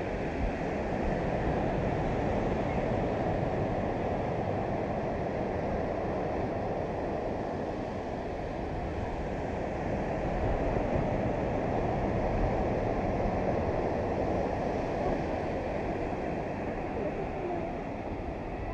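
Steady beach ambience: a continuous low roar of surf and wind, with wind buffeting the microphone.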